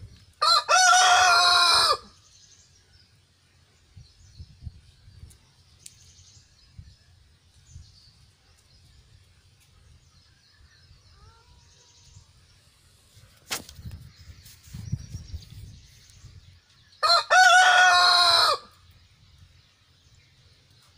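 Rooster crowing twice, about fifteen seconds apart, each crow a loud call of about a second and a half.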